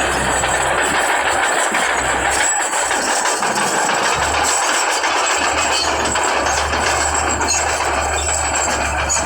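Bulldozer's diesel engine running steadily under load, with a dense mechanical clatter over a low engine drone.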